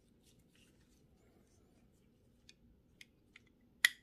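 Small metal clicks of loose steel ball bearings being set into the greased bearing cup of a Shimano Dura-Ace bicycle hub: a few faint ticks, then one sharp, louder click near the end.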